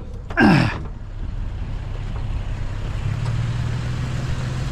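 Vehicle engine idling, a steady low hum that grows stronger about three seconds in, after one short loud burst with a falling pitch about half a second in.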